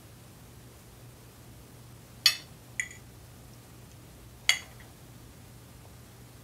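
Cutlery clinking against dinner plates: three sharp, short clinks, two louder ones about two seconds apart and a softer one just after the first, over a faint steady low hum.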